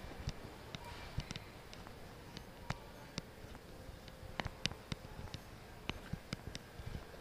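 Quiet grocery-store room ambience with a faint steady hum and scattered, irregular sharp clicks and taps.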